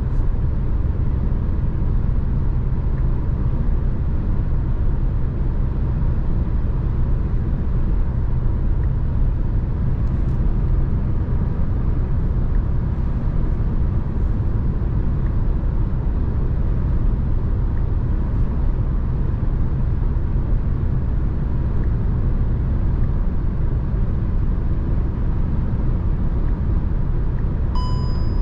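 Steady road and engine rumble of a VW T-Roc with the 1.5 TSI turbo four-cylinder petrol engine, cruising. A short electronic beep sounds near the end.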